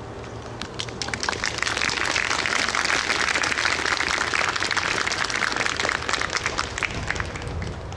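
Audience applauding after a sung piece: scattered hand claps that build into a steady round about a second in and die away near the end.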